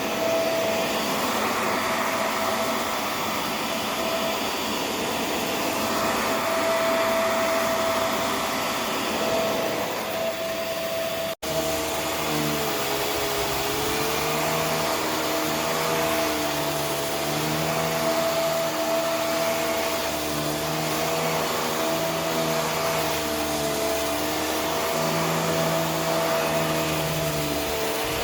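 Vacuum cleaner running steadily with a constant whine. About 11 seconds in it cuts out for an instant, and after that the motor's pitch wavers slowly up and down.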